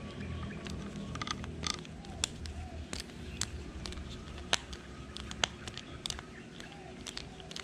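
Irregular small clicks and ticks of a screwdriver turning a small screw into the plastic body of a Shimano Sienna 2500 FE spinning reel, with handling knocks of the reel, over a low steady rumble.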